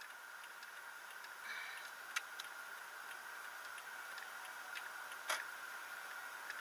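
Faint steady high-pitched whine with a few sharp, irregular clicks, picked up in a moving car's cabin by a dashcam microphone.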